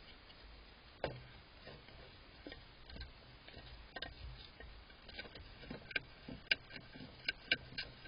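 Groundhog gnawing and pawing at a hanging wooden bird feeder: irregular small clicks and knocks, sharper and closer together in the second half.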